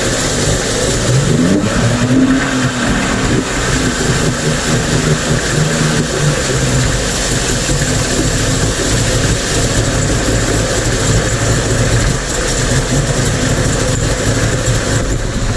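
Mercury 50 two-stroke outboard motor running, revved briefly about two seconds in, then settling into a steady idle. It holds its idle with a new fuel filter fitted, the cure for its rough idling and stalling.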